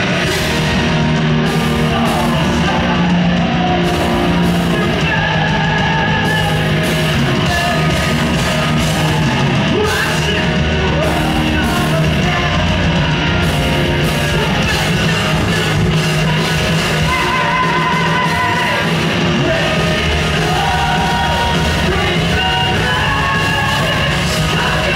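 Live symphonic metal played by a full band: drums, distorted guitars and a male singer, heard from the crowd in a large hall.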